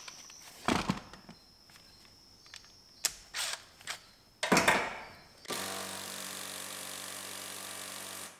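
Cordless impact driver running steadily for about three seconds on a seat floor bolt, cutting off near the end. Before it come a few short knocks and brief bursts as the tool is set on the bolt.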